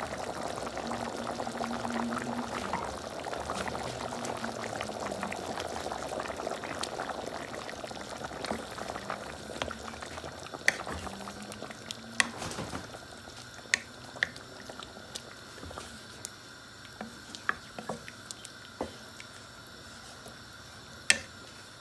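Beef korma bubbling at the boil in a metal pan as double cream is poured in, a steady bubbling hiss. After about twelve seconds it grows quieter, with scattered sharp clicks as a wooden spatula stirs the curry against the pan.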